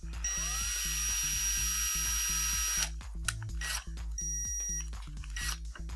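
Electric screwdriver driving a screw into a circuit board's metal mounting bracket: a whir of about two and a half seconds that starts with a rising spin-up, then a shorter burst past the middle and a brief blip near the end. Background music with a steady beat plays underneath.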